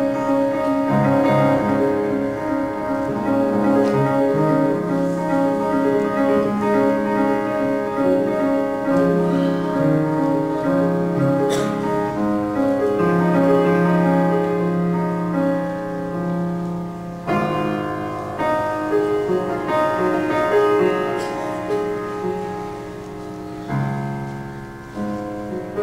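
Solo grand piano played: slow chords and melody with held notes, getting softer near the end.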